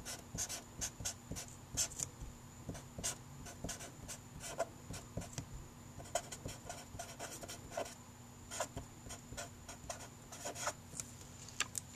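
Felt-tip marker writing on paper: a run of short scratchy strokes with brief pauses between them, as a character and then a word are written out.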